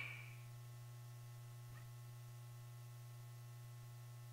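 Near silence: a steady low hum with faint room tone, and one faint tick a little under two seconds in.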